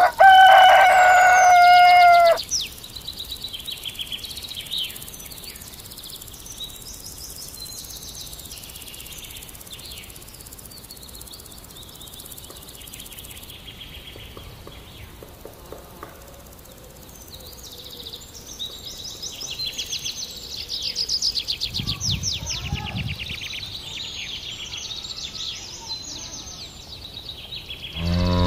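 A rooster crows once, loud, for about two seconds. After it, small birds keep calling with quick high chirps and twitters. A cow starts to moo right at the end.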